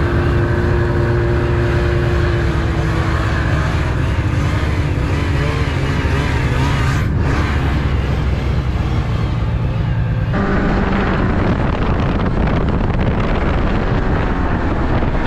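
Snowmobile engine running while riding, the pitch rising and falling with the throttle. The sound changes abruptly about ten seconds in.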